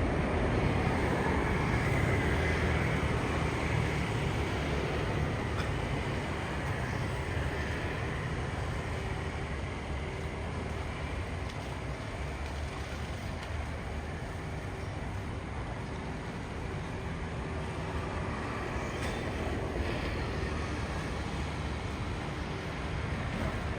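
Steady rumbling vehicle noise, louder at the start, easing off in the middle and building again near the end.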